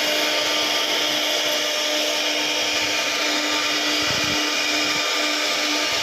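CNC router spindle running steadily while cutting an MDF panel: a constant hum over a continuous rushing noise.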